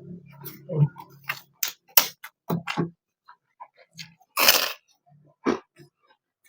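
Close-up eating sounds of someone eating a snapper head: wet mouth clicks and lip smacks in an uneven string, with a longer, louder noisy sound about four and a half seconds in.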